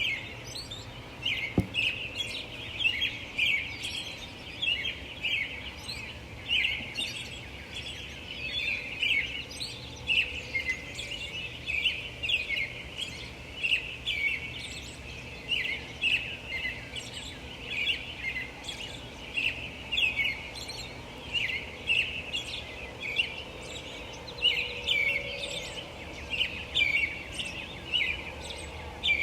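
A dawn chorus of many small birds, with quick chirps and twitters overlapping without pause, over a faint low hum of distant light traffic. There is a single short thump about a second and a half in.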